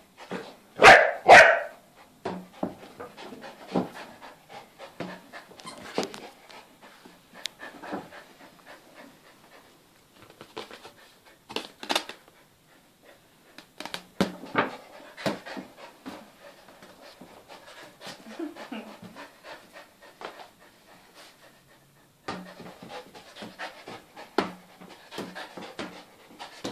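A dog barking twice loudly about a second in, then panting as it plays, with scattered light knocks and thuds.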